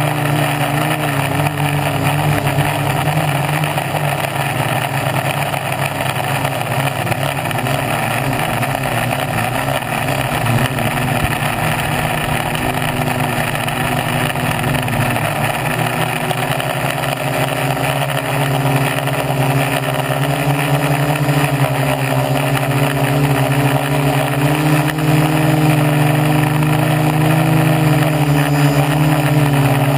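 Hobbyking SK450 quadcopter's four Turnigy Gold 1100 kV brushless motors spinning 10x4.5 props in flight, heard from the camera on the frame as a steady, loud multi-tone buzz. Its pitch shifts as the throttle changes, notably about halfway through.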